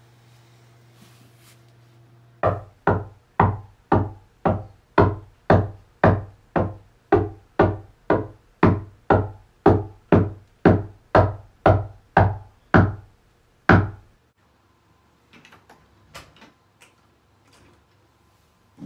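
Knocking on a wooden front door, some twenty evenly spaced knocks at about two a second, each heavy with a deep boom and short ring. The last knock comes after a slightly longer pause. These are the door knocks of the Midnight Man ritual.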